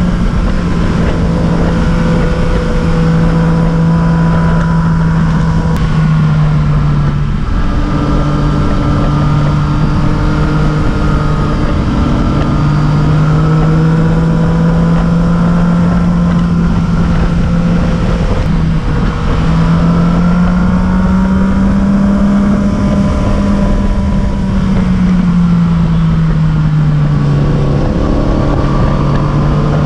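A vehicle engine running steadily and loudly, its hum drifting slowly up and down in pitch over several seconds at a time.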